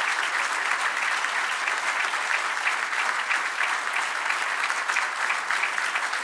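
Audience applauding: many people clapping in a dense, steady stream.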